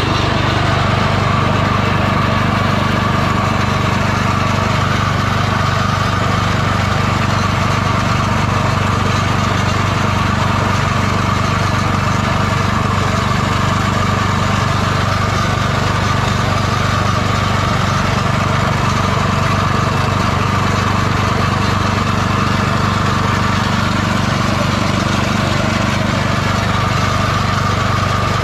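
Small petrol engine running steadily, belt-driving a meat grinder that is mincing fish and feed pellets into eel feed.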